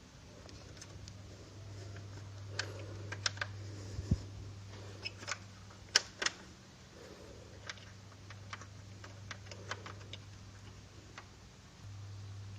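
Scattered light clicks and taps of plastic parts being handled as a speaker's cooling fan is fitted back into its housing, over a low steady hum that fades briefly near the end and then returns.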